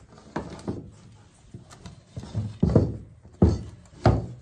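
Wooden sticks knocking against a tabletop in a string of dull thunks, the loudest three in the second half, as cord is wrapped around a lashed cross of sticks and pulled tight.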